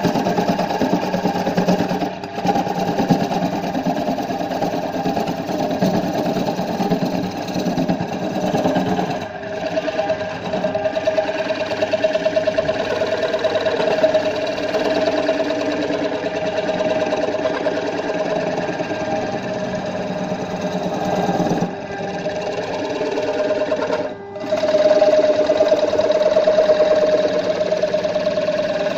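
Wood lathe spinning a wooden disc while a hand-held steel turning tool cuts into it: a steady, fast rattling hum of the cut and the lathe, which dips briefly about four times as the tool eases off.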